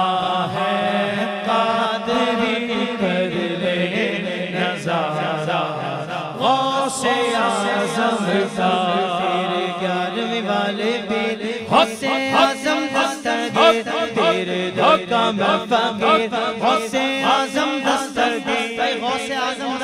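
A man singing an Urdu manqabat, a devotional song, through a microphone and PA, in long drawn-out melodic phrases over a steady low drone. About twelve seconds in, his singing turns quicker and choppier.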